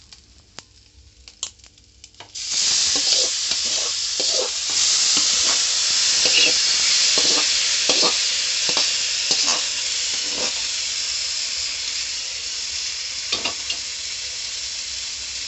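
Cooked eggplant chutney tipped into hot tempering oil in a metal kadai. After a few light clicks, a loud sizzle starts suddenly about two seconds in and keeps on. Repeated knocks of a metal spoon scraping the chutney out of its pot run through it.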